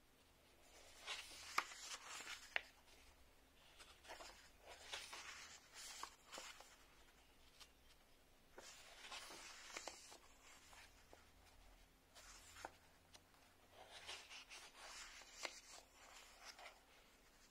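Paper pages of a paperback book being turned and pressed flat by hand: about five short bursts of faint paper rustling with light clicks.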